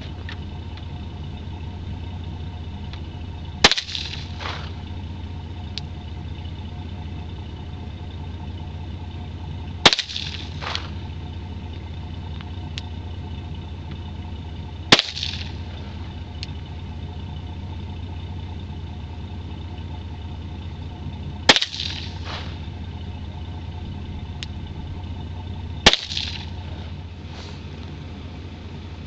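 Five single pistol shots of handloaded .40 S&W rounds, fired slowly about four to six seconds apart, each followed by a short echo.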